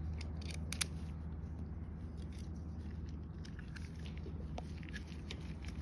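Scattered small metal clicks and taps from the chain riveting tool's pin and anvil tips being handled and fitted, a cluster of them in the first second, over a steady low hum.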